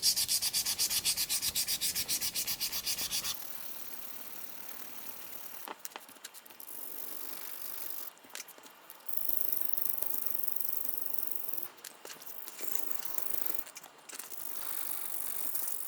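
600-grit sandpaper rubbed back and forth over a clear plastic model part. There are quick, even strokes at about six a second for the first three seconds, then a steadier, higher hiss of sanding in stretches with short pauses. The sanding is grinding down ejector-pin marks.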